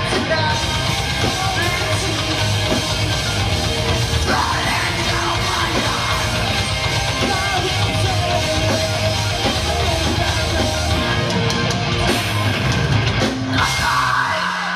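Live rock band playing loud: electric guitars, bass and drum kit with vocals, the full sound thinning out near the end.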